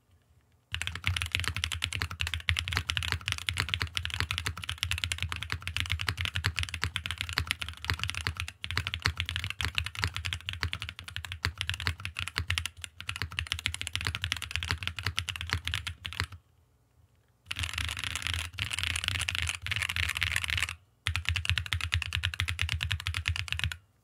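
Mechanical keyboard with stock, unlubed Keygeek RAW long-pole linear switches typed on quickly and continuously, pausing briefly twice, about 16 and 21 seconds in. The keystrokes sound clean, with no crunch, rattle or ping.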